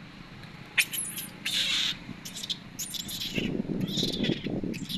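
Short, sharp, high-pitched animal squawks, several in a row, the longest about a second and a half in.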